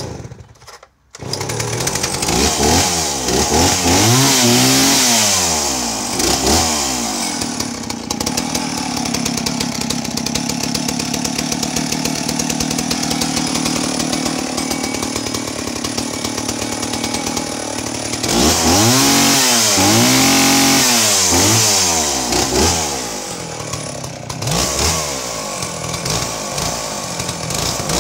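Stihl 041AV 61cc two-stroke chainsaw engine catching about a second in, then revved up and down in blips, running steadily for about ten seconds, and revved again near the end. The owner reckons it is running a tiny bit rich.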